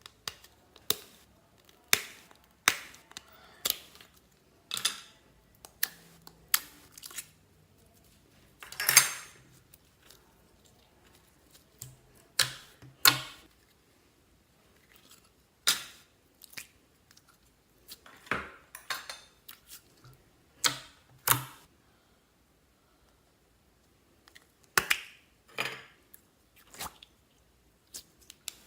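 Slime being squeezed and poked by hand, making irregular sticky clicks and squelches about once a second, with a couple of brief pauses.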